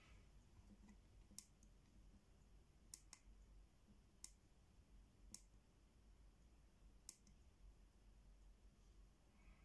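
Near silence with about six faint, sharp clicks spaced irregularly: small push buttons on the detector's circuit board being pressed by finger.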